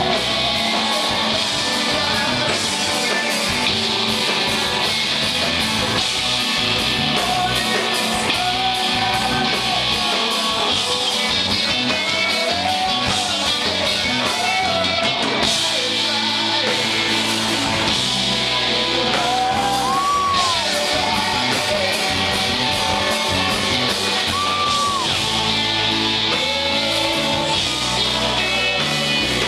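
Live rock band playing: electric guitars, keyboard and drums in a steady beat, with a male voice singing melodic phrases over them.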